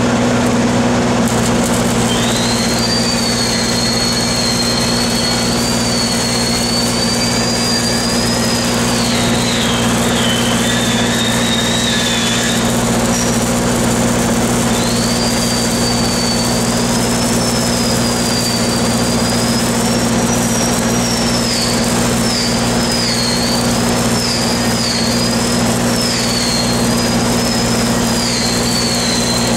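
Steady low drone of engines under the hiss and crackle of shielded metal arc (stick) welding on a steel pipe joint. A thin high whistle wavers in pitch through most of it, breaking off briefly a little before the middle.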